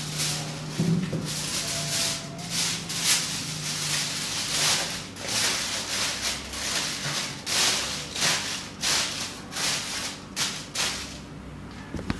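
Aluminium foil crinkling and rustling in quick, irregular handfuls as it is pressed into the bottom of a plastic laundry basket, stopping about a second before the end.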